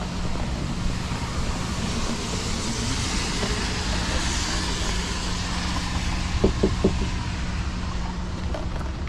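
Steady outdoor road-traffic noise with a constant low hum, and three short squeaks close together about six and a half seconds in.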